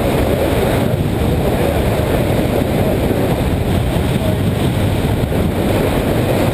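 Motorcycle riding along, its engine running steadily under way with road noise, at an even level throughout.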